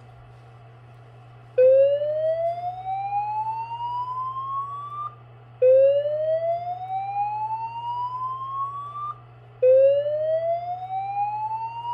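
Slow whoop evacuation tone from a System Sensor SPSR fire alarm speaker strobe, the alert signal of a voice evacuation message. It sounds as a tone rising steadily in pitch for about three and a half seconds and then cutting off, repeating every four seconds. The first whoop starts about a second and a half in, and the third is still rising at the end, over a steady low hum.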